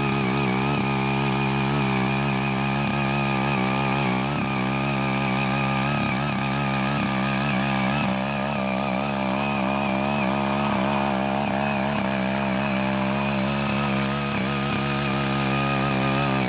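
Ching Yee CY80 mini garden tiller's small engine running steadily at working speed while its rotary tines till and weed hard, uncultivated soil.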